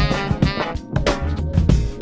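Instrumental background music with a steady drum kit beat, bass drum and snare hits under pitched instrument notes.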